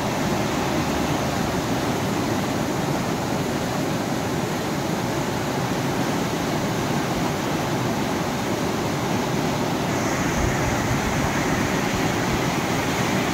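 Fast-flowing river water rushing and churning over rapids: a loud, steady roar.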